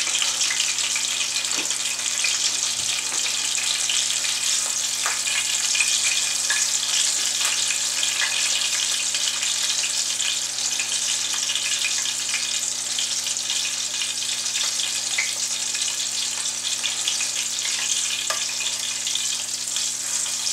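A sausage wrapped in corn tortillas frying in hot peanut oil: a steady crackling sizzle, with a faint steady hum underneath.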